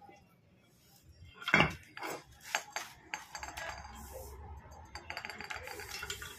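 Metal gearbox parts and tools clinking and knocking against each other. One sharp knock about a second and a half in is the loudest, followed by a run of lighter clicks and light rattling.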